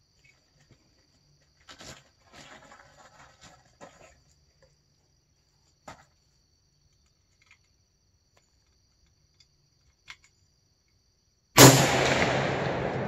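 A 6.5 Creedmoor bolt-action rifle, a Thompson/Center Compass, firing one shot near the end, a sharp loud report with a long fading echo. Before it, only faint clicks and rustles.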